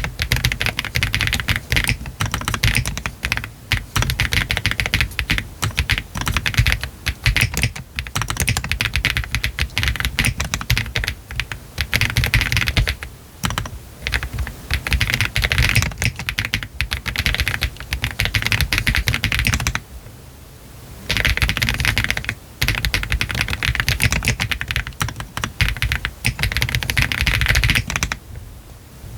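Fast, continuous typing on a Meletrix ZOOM TKL mechanical keyboard with Y3 switches, a PC flex-cut plate and cherry-profile PBT keycaps, the case foam removed. There are brief pauses about twenty seconds in and near the end.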